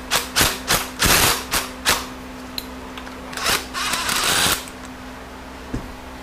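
Hand tools being handled on a workbench: a quick run of metal clicks and clatters, then a longer clattering stretch about three and a half seconds in and one small click near the end, over a steady shop hum.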